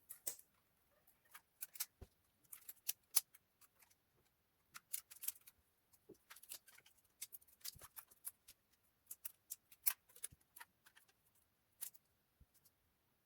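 Irregular small clicks and snaps of rubber bands being stretched and wrapped around a phone, clamping its newly glued screen while the glue sets.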